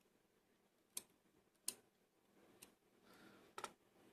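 Four faint, sharp clicks, spaced irregularly, of small lock parts being handled while a Lockwood 570 oval pin-tumbler cylinder is taken apart, with a faint rustle just before the last click.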